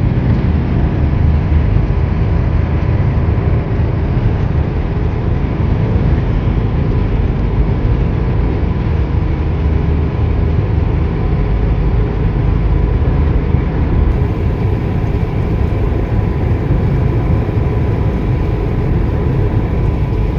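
Steady road and engine noise of a car driving at speed, heard from inside the cabin: a continuous low rumble and tyre hiss.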